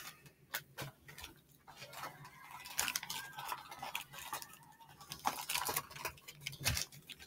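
Light crinkles, crackles and taps of a toy blind-bag packet being handled and pulled at by hand, scattered and irregular.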